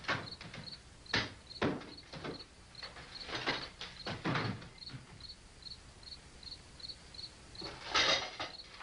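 Wooden furniture knocking and clattering as chairs and a dining table are handled, in several irregular knocks with a louder rustling clatter near the end. Under it, crickets chirp steadily, a small high pip a couple of times a second.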